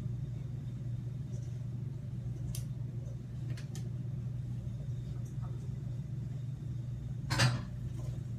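Steady low hum of a running kitchen appliance, with a few faint ticks of handling and one brief louder clatter near the end.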